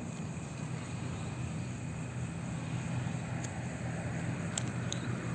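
A distant engine's steady low drone that grows slightly louder in the second half, under a faint steady high insect trill and a few small clicks.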